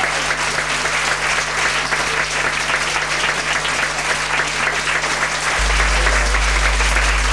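Audience applauding steadily, a dense patter of many hands clapping, for dancers taking their bows. A low hum runs underneath and steps up in level near the end.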